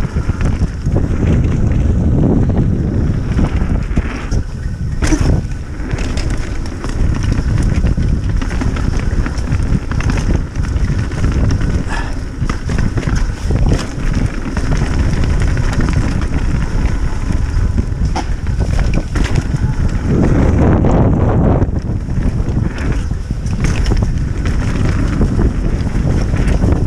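Wind rushing over the microphone of a camera riding along on a mountain bike on a trail, steady and loud, with frequent sharp knocks and rattles from the bike over rough ground.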